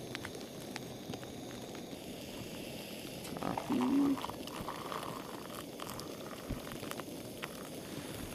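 A pot of water heating to a boil over a campfire: a steady bubbling hiss with scattered crackles and pops from the fire. Between about three and a half and four seconds in there is a short pitched sound, the loudest thing here.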